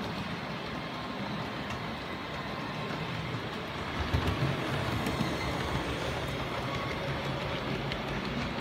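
An OO gauge model train runs on the track: a steady running noise with a low hum from the model tank locomotive and its coaches. It gets louder about four seconds in, with a few low thuds, as the train passes close by.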